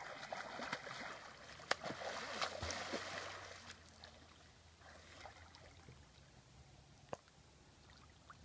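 Splashing of a person swimming in river water, loudest over the first four seconds and then settling to quieter lapping, with a couple of sharp clicks.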